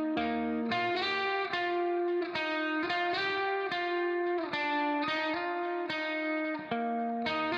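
Background music: guitar playing sustained chords that change every second or so, with a plucked attack at each change.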